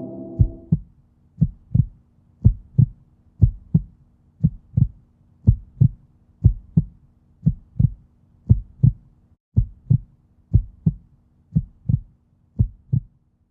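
Heartbeat sound effect: a steady lub-dub, two low thumps close together about once a second. It enters as a ringing tone fades out in the first second.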